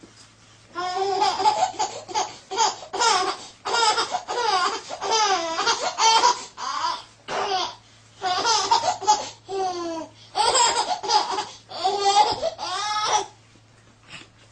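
A baby laughing hard in repeated high-pitched fits of giggles and belly laughs, starting about a second in and stopping shortly before the end, with brief pauses between runs.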